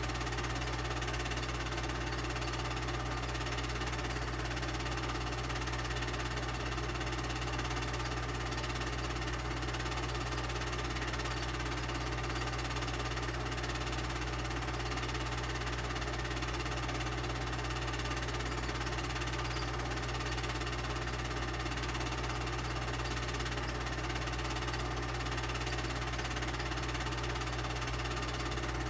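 Steady mechanical whir from a running motor over a low, even hum, unchanging.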